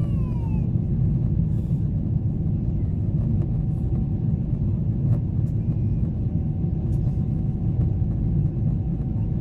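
Steady low rumble of cabin noise inside a Boeing 777-300ER in flight: its GE90 engines and the airflow over the fuselage heard through the cabin wall.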